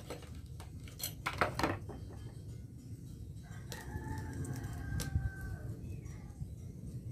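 A rooster crows once, a held call starting about four seconds in, over a steady low rumble. Near the start, a quick run of sharp metallic clinks, the loudest sounds here, as the blacksmith's tongs knock against the steel billet.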